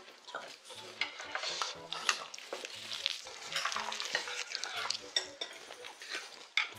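Eating sounds: spoons scraping and clicking against bowls with many small clicks, and chewing.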